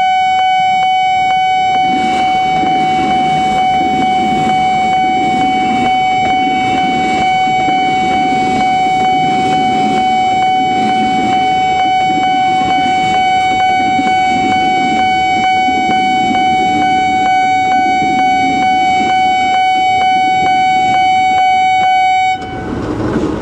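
Railway level-crossing warning alarm sounding one very loud, steady electronic tone. From about two seconds in, an electric commuter train rumbles past with a steady clatter of wheels over the rails. The alarm cuts off abruptly near the end.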